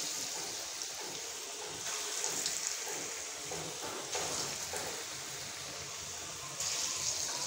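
Chana dal pakora batter frying in hot refined oil in an iron kadhai: a steady sizzle, with small swells as fresh lumps of batter are dropped into the oil by hand one by one.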